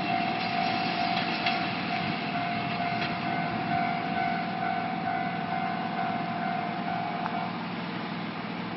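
Electric multiple-unit train pulling away down the line, its running noise slowly fading. A level-crossing alarm rings steadily and cuts off about seven and a half seconds in, as the crossing clears.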